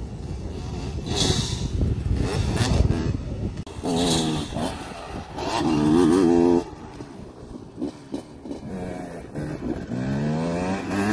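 Dirt bike engines revving as riders accelerate around the track. Engine pitch climbs and drops with the throttle, with loud surges about 4 s and 6 s in and a rising rev near the end as one bike pulls away.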